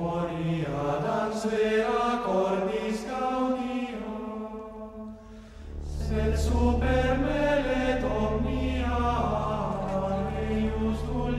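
Choral chant music: voices singing slow, held phrases. A deep, steady low note joins about halfway through.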